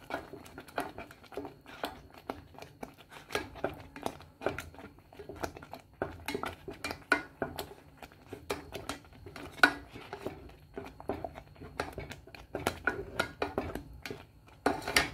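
Silicone spatula stirring a thickening cornstarch paste around a stainless steel saucepan on the heat. The spatula scrapes and knocks against the pot's sides and bottom in an irregular run.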